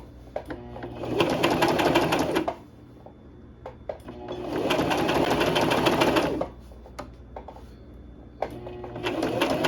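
Electric sewing machine stitching in three short runs of about two seconds each, the motor rising in pitch as each run starts under the foot pedal, with a rapid needle clatter and quieter pauses in between. The third run begins near the end.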